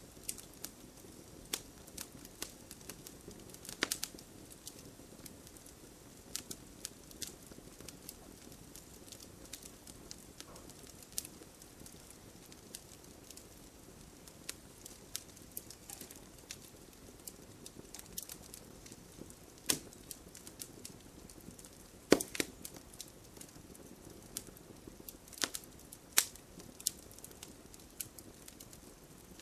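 Wood fire crackling: a soft steady hiss under irregular sharp pops and snaps, a few louder pops standing out, the loudest about two-thirds of the way through.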